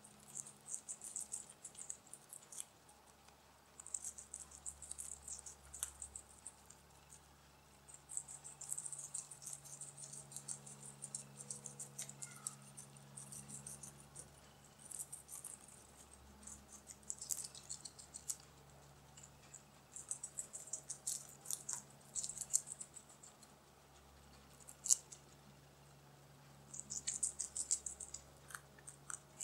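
Young Lunkarya guinea pig chewing a piece of chicory: fast, crisp crunching in bouts of a second or two, with short pauses between bouts.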